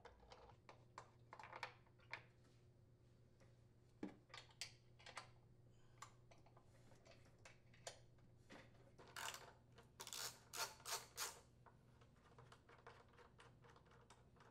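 Faint scattered clicks and light metallic taps from a socket tool on the blower housing bolts of a Briggs & Stratton riding-mower engine as they are unthreaded. There is a quick run of sharper clicks about two-thirds of the way through, over a faint low hum.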